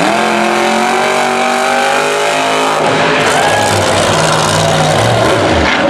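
Monster truck engine running at high revs, loud, its pitch climbing slightly over the first couple of seconds. About three seconds in it turns into a rougher, noisier, lower-pitched run.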